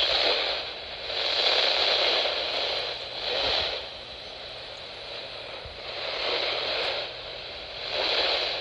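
Radio static hiss from a weather radio receiver, swelling and fading several times, with no voice coming through: the signal is weak.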